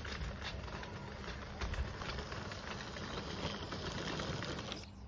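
Live-steam 16mm-scale garden railway locomotive running close by, with a steady steam hiss and scattered clicks from the train on the track. The sound cuts off suddenly just before the end.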